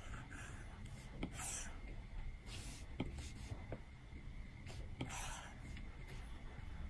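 Stylus tip tapping and stroking on an iPad's glass screen: about four light ticks and a few short brushing strokes.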